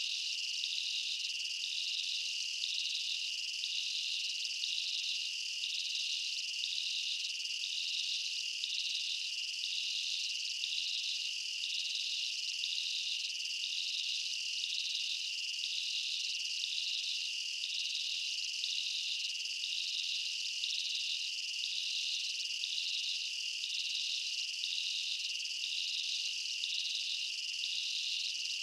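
Steady chorus of insects: a constant shrill note with a second, higher note pulsing evenly, a little faster than once a second.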